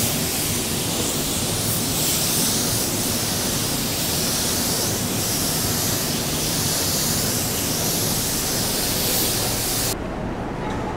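3M Performance gravity-feed spray gun with a 1.2 mm tip hissing steadily as compressed air atomises and sprays a coat of grey sealer onto a car fender. The hiss cuts off sharply about ten seconds in, when the trigger is released.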